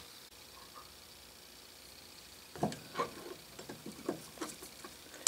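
Light clicks and knocks of a small steel spacer plate being handled on a steel guide rod and threaded rod, starting about halfway in, with one sharper click at the end.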